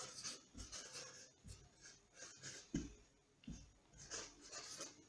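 Faint, short scratching strokes of a marker pen writing on a whiteboard, with one soft thump a little under three seconds in.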